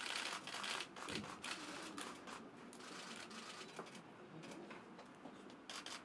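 Faint rustling and irregular clicks of people and press cameras moving about in a small room, with low murmured voices.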